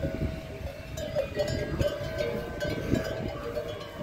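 Livestock bells clanking and ringing irregularly, over a low rumble.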